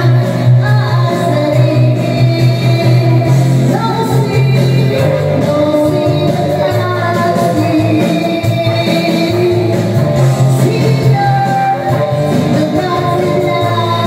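Woman singing karaoke into a handheld microphone, her amplified voice over a loud musical backing track.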